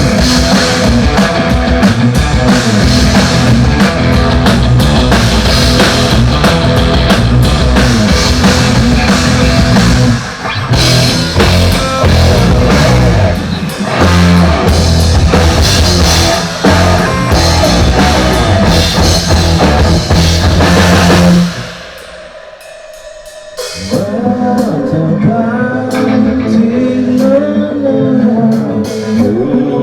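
Rock band playing loud through a PA: drum kit, bass and electric guitar. The band stops abruptly about 21 seconds in, and after a short pause a softer, melodic passage begins.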